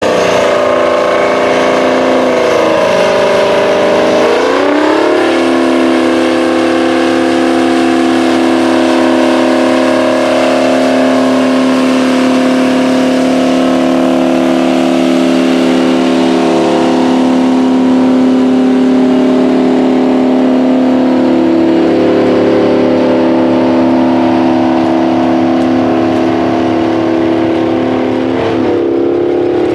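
The Rite 750 Earthquake tractor's Detroit Diesel 12V92 two-stroke V12 diesel engine working under load as it pulls a 20-bottom moldboard plow. Its pitch dips and then climbs back about three to five seconds in. It then runs loud and steady, with a brief wobble in pitch near the end.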